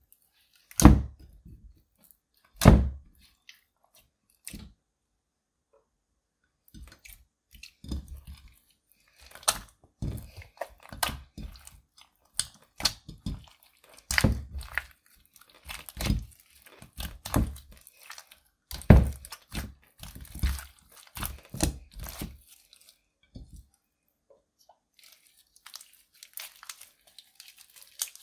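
Clear slime mixed with crushed black eyeshadow being kneaded, squeezed and stretched by hand, giving irregular sticky squelches, clicks and pops. Two loud pops come in the first few seconds, the sounds grow busy from about seven seconds in and thin out near the end.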